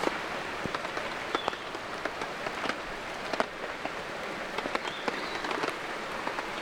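Steady light rain hissing, with many individual drops landing as sharp ticks.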